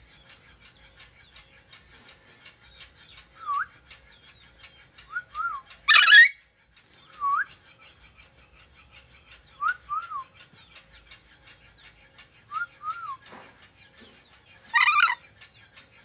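Caged lory (nuri dora) whistling a short up-and-down phrase, usually two notes, every couple of seconds. It gives two loud harsh calls, about six seconds in and again near the end. A steady high-pitched whine runs underneath.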